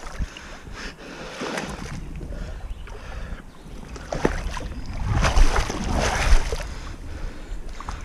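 River water sloshing and splashing as someone wades through a shallow stream, getting louder about five seconds in and easing off after six and a half, with a low rumble on the microphone.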